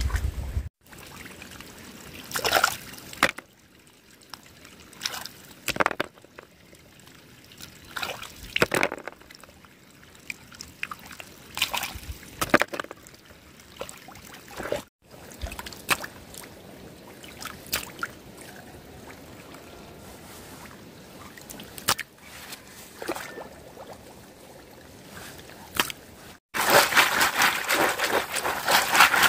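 Shallow water sloshing and trickling, with scattered small splashes. About three seconds before the end, a louder steady rushing noise comes in.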